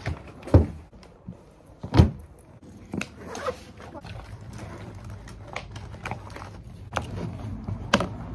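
Books and notebooks being set down and handled on a wooden floor: a series of thuds, the loudest two in the first two seconds, with softer knocks and paper rustling between them.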